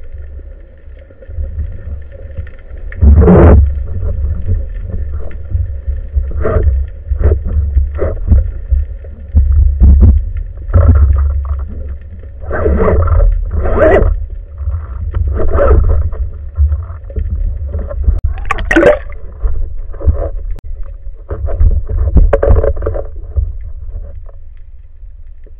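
Water and boat noise: a steady low rumble under a faint steady hum, broken by irregular knocks and gurgling splashes. The loudest knocks come about 3, 10 and 19 seconds in.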